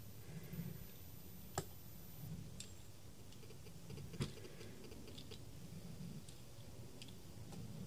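Pizza-cutter wheel rolling through soft dough on a board, faint, with scattered light clicks and two sharper clicks about one and a half and four seconds in.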